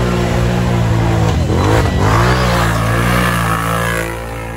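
Quad ATV engine revving hard under throttle as it powers through a mud hole. The revs dip and climb again about a second and a half in, and the sound falls quieter near the end.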